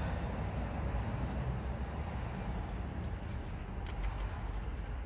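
Gloved hand picking and peeling at an old vinyl decal on a vehicle's front fender, over a steady low rumble.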